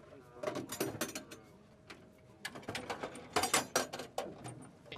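Quick metallic clicks and clinks of mortar rounds and a metal ammunition can being handled. The clicks come in a cluster about half a second in and another from about two and a half to four seconds.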